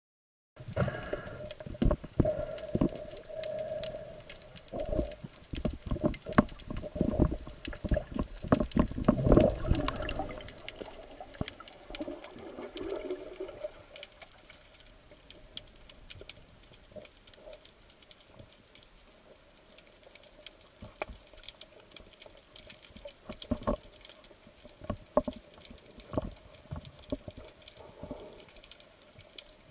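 Underwater sound through a camera housing: scattered clicks and crackles over a faint steady hum, with heavier thumps and water swishing in the first ten seconds before it settles.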